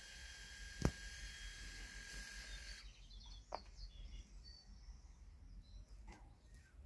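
Quiet outdoor ambience: a steady high hiss with a thin whine cuts off abruptly about three seconds in, then scattered short bird chirps. One sharp tap about a second in is the loudest sound.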